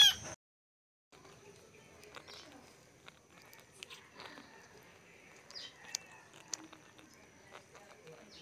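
A kitten's short, high meow, cut off abruptly. Then faint ambience with a steady high insect trill and scattered small clicks.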